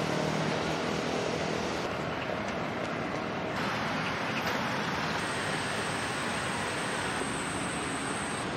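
City street traffic noise: a steady rush of passing vehicles, growing brighter about three and a half seconds in. A thin, steady high tone joins it about five seconds in.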